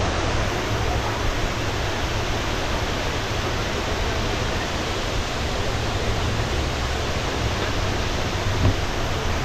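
Waterfall rushing steadily, a dense even noise of falling water with no breaks.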